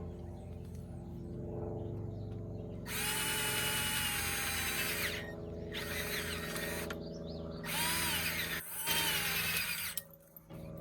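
Electric drill boring through aluminum chair-frame tubing: the motor hums steadily while the bit bites into the metal in four loud, high-pitched grinding spells, the first lasting about two seconds and the rest shorter, the last two close together near the end.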